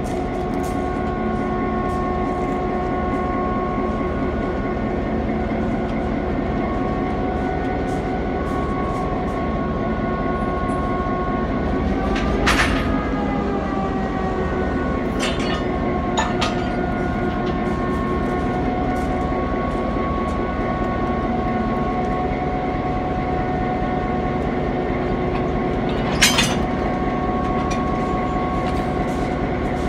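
EMD GP7 diesel-electric locomotive's 16-cylinder 567 engine running steadily, its note shifting briefly about twelve seconds in. Sharp knocks stand out four times, around twelve, fifteen, sixteen and twenty-six seconds.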